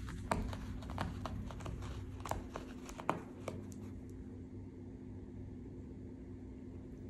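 Light rustling and a scatter of small clicks over the first three and a half seconds, then only a quiet steady room hum.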